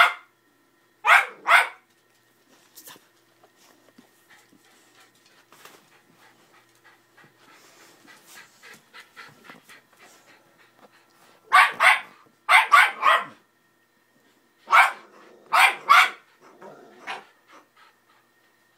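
Dog barking in short groups: two quick barks, then after a long gap a run of four, then three more and a few weaker ones. Light panting and scuffling on bedding lie between them.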